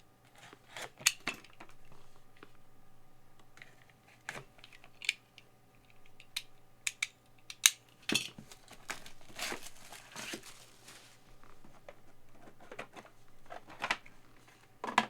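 Card packaging being opened and handled: tearing and crinkling of wrapping mixed with scattered sharp clicks and taps of hard plastic graded-card cases.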